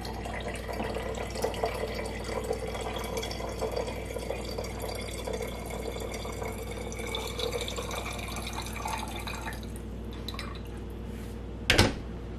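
Cold brew coffee concentrate pouring from a French press into a glass mason jar, a steady trickle for nearly ten seconds. A couple of seconds after the pour stops, the press is set down on the counter with one sharp knock.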